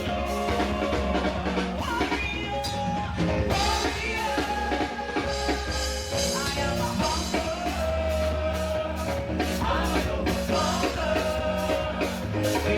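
Praise-and-worship music: a praise team singing over a band with a steady drum beat.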